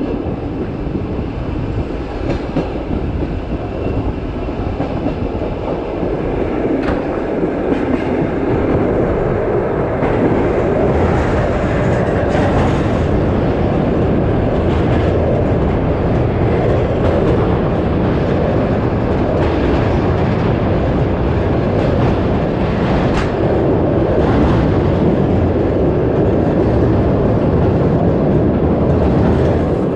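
Passenger train running on the rails: a steady, loud rumble of wheels and carriage with a few sharp clicks, as it crosses a steel truss bridge.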